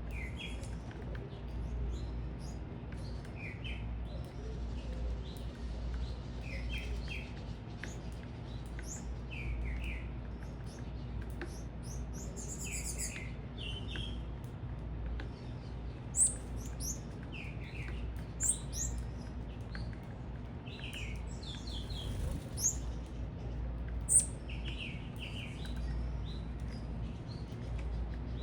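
Birds chirping: many short, quick chirps throughout, a few sharper and louder ones in the second half, over a steady low rumble.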